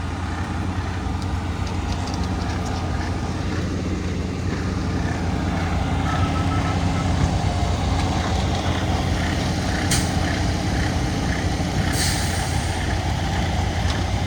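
Diesel engine of a concrete truck mixer running steadily at a pour, with two short hisses about ten and twelve seconds in.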